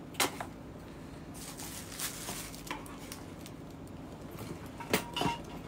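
A gift box and its packaging being handled and opened: soft rustling and scraping, with a sharp click just after the start and two more knocks near the end.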